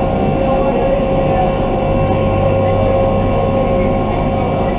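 Passenger boat's engine running steadily while under way, a loud even hum with a steady whine over it.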